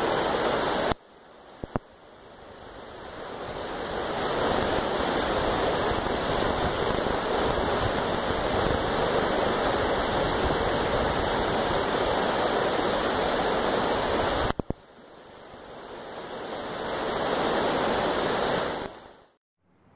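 Shallow creek running over rocks in riffles: a steady rush of water. The rush drops out abruptly about a second in and again past the middle, swelling back each time over a few seconds, and fades out just before the end.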